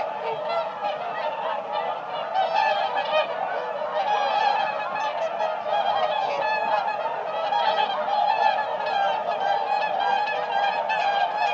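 A flock of swans calling, with many short honking calls overlapping without a break.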